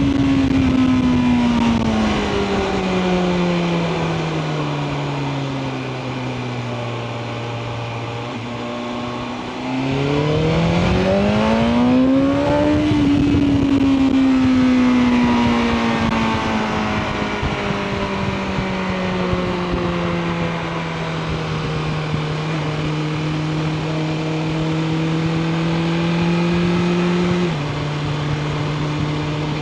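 BMW M1000R Competition's inline-four engine on a ride. The engine note sinks steadily as the bike rolls off the throttle, then climbs sharply under hard acceleration about ten seconds in and eases down again. Near the end the pitch drops abruptly at a gear change.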